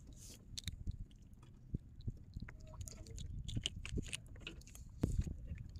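Close handling noise of hands working bait onto a fishing hook and line: scattered small clicks, crackles and rustles over a low rumble, with a louder knock about five seconds in.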